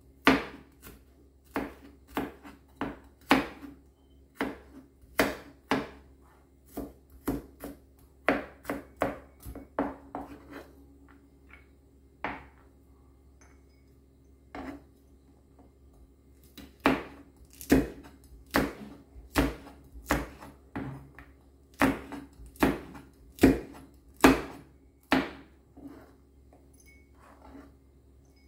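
Kitchen knife chopping garlic and then red chillies on a plastic cutting board: runs of sharp knocks, about two a second, with a pause of a few seconds midway.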